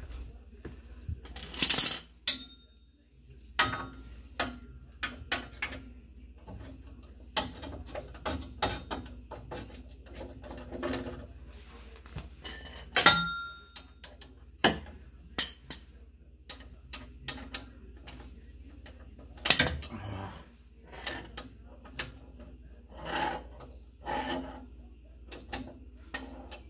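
Socket wrench with a long extension clinking and knocking against metal as it is worked onto bolts: irregular sharp clicks and taps, with louder ringing clinks about two seconds in and again about thirteen seconds in.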